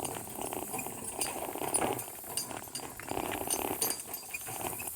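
Metal harness and cart hardware clinking and jingling irregularly as a team of harnessed donkeys walks along, pulling.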